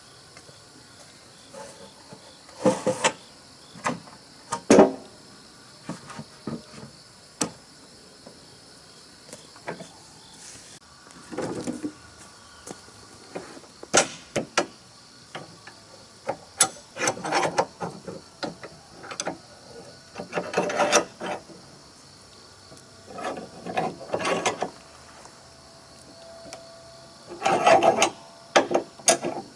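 Irregular knocks, clicks and rattles in short clusters every second or two, with no saw or engine running.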